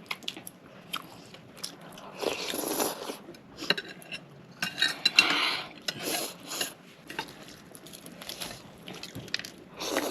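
Close-up mukbang eating sounds: crunchy bites into crispy fried chicken and chewing, two longer crunching bouts, with short clicks of cutlery and dishes in between.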